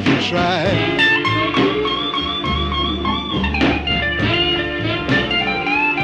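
Background music: a guitar-led song with plucked notes, and notes that bend up and down at the start and again near the end.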